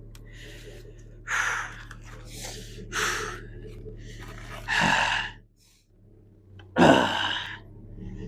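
A man's heavy, strained breaths and grunts, four hard exhalations with the last two the loudest, from the effort of lifting a heavy tree stump by hand.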